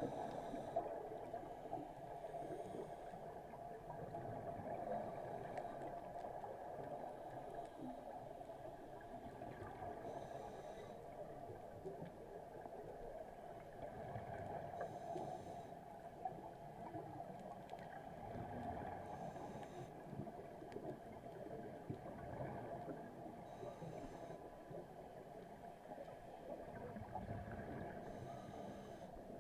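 A scuba diver's regulator heard underwater: a burst of exhaled bubbles about every four to five seconds, over a steady hum.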